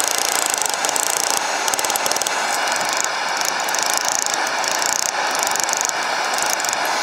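Hammer blows on hot steel bar stock at an upright steel anvil block, coming so fast and close together that they run into one continuous, dense metallic clatter.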